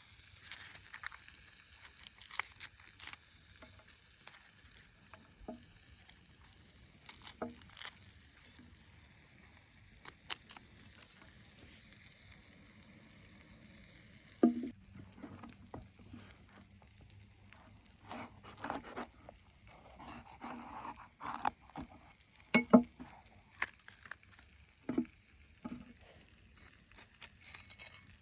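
Irregular scrapes, clinks and knocks of cooking utensils and food being handled, with the loudest knocks about halfway through and again near the end.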